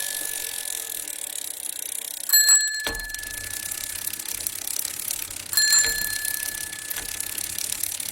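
A small bell rings twice, about three seconds apart, each ring fading over a second or so, over a steady hiss. There is a low thump just after the first ring.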